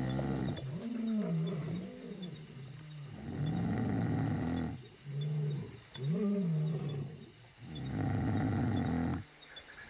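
A sleeping person snoring heavily: a run of deep, drawn-out snores, each rising and falling in pitch, one every two to three seconds.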